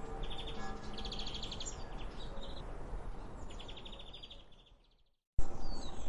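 Outdoor ambience of small birds trilling and chirping in quick repeated runs over a steady low rumble, with a few faint held tones. Near the end it fades out to a moment of silence, then cuts back in abruptly and louder.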